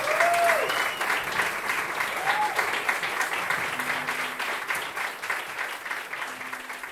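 Audience applauding steadily, slowly fading toward the end, with two short cheers from the crowd in the first few seconds.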